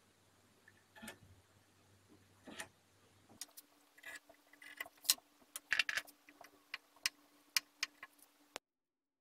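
Scattered light clicks and taps of a metal combination square and marking tool handled against a wooden block on a wooden workbench. They come more often in the second half and stop abruptly near the end.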